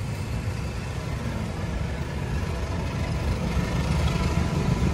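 Low diesel engine rumble growing steadily louder toward the end: a diesel locomotive approaching, heard over passing road traffic.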